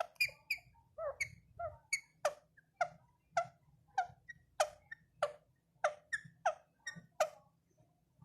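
A parrot calling over and over in short calls, nearly two a second. Most calls drop sharply in pitch, and a few near the start hold a higher steady note.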